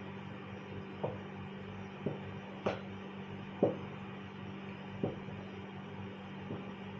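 A stirring utensil knocking lightly against the side of a saucepan of porridge as it is stirred: about six light knocks, roughly a second apart, over a steady low hum.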